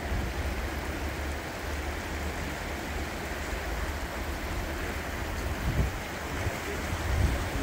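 Swollen River Wye in flood, its fast brown water rushing in a steady noise, with wind buffeting the microphone in low rumbles that gust louder near the end.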